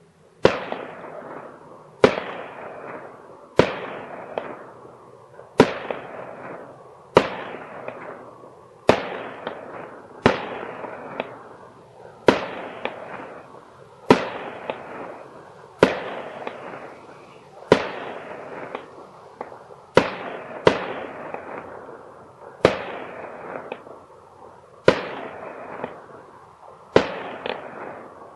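Aerial fireworks shells bursting one after another in a steady series, a sharp bang every second and a half to two seconds, now and then two close together. Each bang trails off over about a second.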